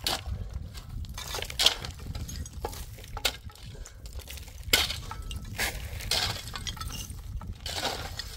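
Irregular sharp clinks and knocks of hard objects striking one another, about a dozen, the loudest about a second and a half in, over a low steady rumble.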